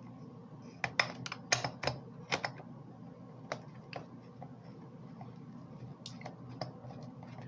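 Light, irregular clicks and taps of a screw and plastic instrument-cluster parts being handled. A quick run of clicks comes about a second in, then a few scattered single ones.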